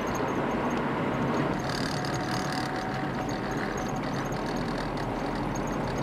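Steady low hum of a motor vehicle engine idling, holding an even level with no pass-by swell.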